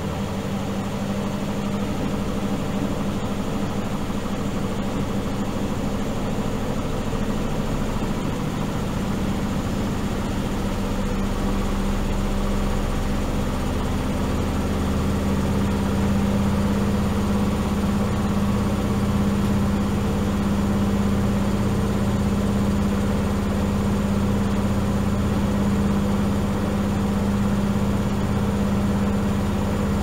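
Miele Supertronic W5000 front-loading washing machine spinning: a steady motor hum and rushing drum, growing a little louder over the first half and then holding steady.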